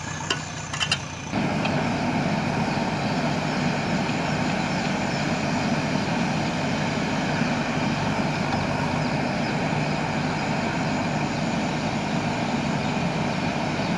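JCB 3DX backhoe loader's diesel engine running steadily under load while the backhoe arm works. A few sharp clicks come in the first second, then about a second in the engine sound jumps louder and holds steady.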